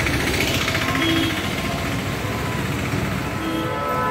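Busy street noise of traffic and voices, with music playing over it. Short held tones come in several at once near the end.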